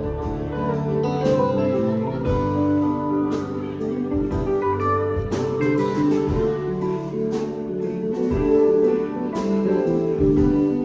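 A band playing live, with guitar prominent over bass notes and steady drum hits.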